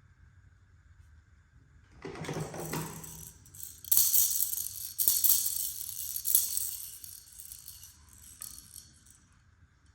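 Small hard plastic toy pieces rattling and clicking together in their packaging, starting about two seconds in, loudest in the middle and fading near the end.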